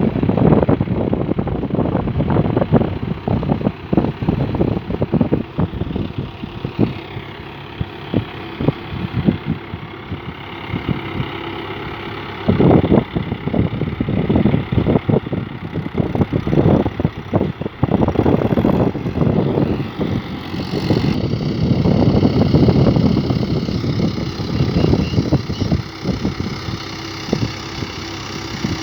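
Swaraj 843 XM tractor's three-cylinder diesel engine running under load while ploughing, a rapid knocking chug that swells and eases several times.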